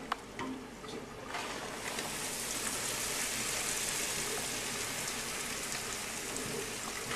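Fresh breadcrumbs poured into hot oil in a frying pan, sizzling. The sizzle starts about a second in and then holds steady.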